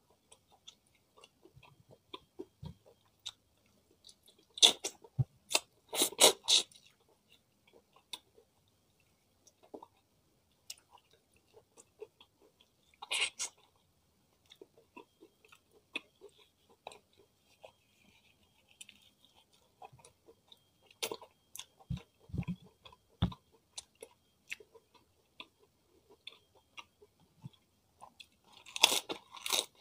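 Close-miked chewing of fried chicken, rice and raw vegetables, mostly quiet and wet, with a few loud crunchy bites: two near the start, one about 13 seconds in and one just before the end.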